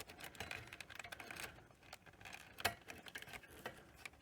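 Faint, irregular small clicks and rustles of hands moving the wiring inside an opened video recorder, with one sharper click about two and a half seconds in.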